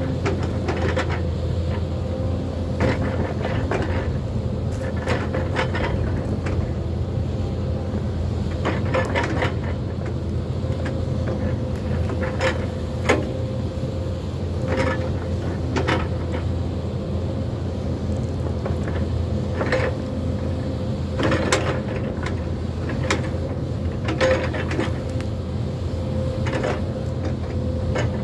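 Hyundai crawler excavator's diesel engine running steadily with a constant whine over its hum, while irregular sharp cracks and knocks come from its grapple and fork working through trees and brush.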